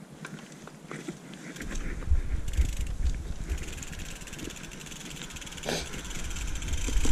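Mountain bike setting off down a steep, leaf-covered dirt trail: small clicks and rattles at first, then from about a second and a half in a low rumble of tyres and wind on the camera that builds as speed picks up, with a sharp knock near the end.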